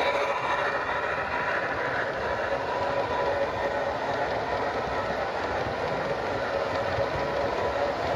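Finescale O gauge model train coaches rolling along the track, a steady rumble of metal wheels on the rails with a faint steady whine.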